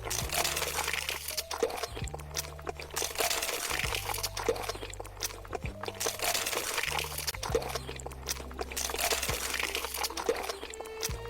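Crunching from eating close to the microphone, with sharp crackly strokes every second or so, over background music with a low bass line that steps between notes.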